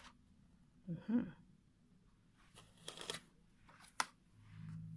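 Oracle cards being handled and laid down on a cloth-covered table: soft card rustles and a sharp tap about four seconds in. A brief voice-like sound about a second in is the loudest thing, and a low hum comes in near the end.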